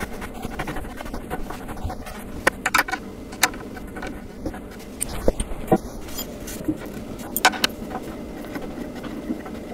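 Metal clicks and clinks of an Allen wrench and bolts as long bolts are tightened to fix cedar posts to a wooden sandbox frame, coming in small clusters, with a dull knock of wood about five seconds in.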